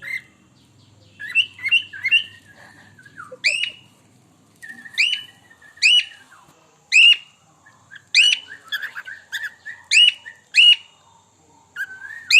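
Pet bird calling over and over: short, sharp, pitched calls, each a quick upward sweep, repeated about a dozen times with gaps of half a second to a second.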